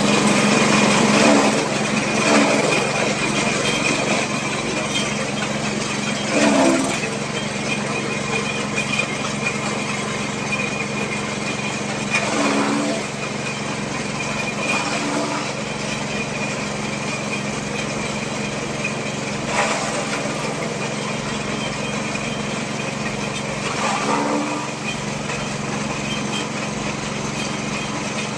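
Motor-driven fodder chopping machine running steadily with a constant hum, with several short louder crunching bursts scattered through, as of fodder being cut.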